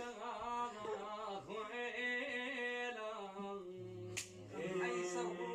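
A voice singing long, held notes that waver and slide slowly. There is a sharp click about four seconds in.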